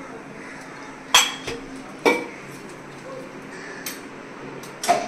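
A metal spoon clinking against a stainless-steel bowl and strainer three times: sharp strikes about a second in, about two seconds in and near the end, each ringing briefly.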